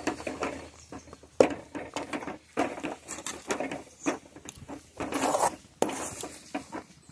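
Metal spoon stirring and mashing thick rice-flour dough in a metal pot, scraping and knocking against the pot's sides in irregular strokes, with one sharper knock about a second and a half in.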